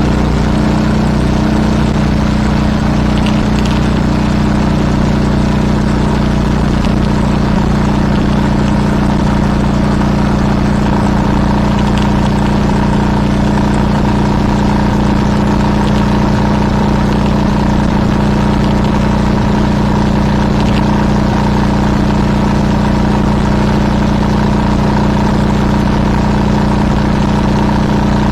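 Vehicle engine running at a constant pitch, a steady drone over road noise with no change in speed.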